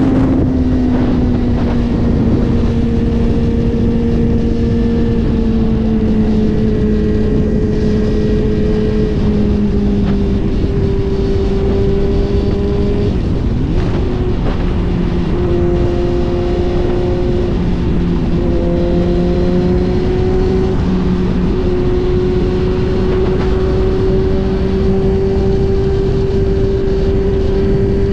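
Suzuki GSX-R1000's inline-four engine running at a steady cruise, its note easing down slightly through the middle and climbing a little near the end, under a heavy rush of wind on the microphone.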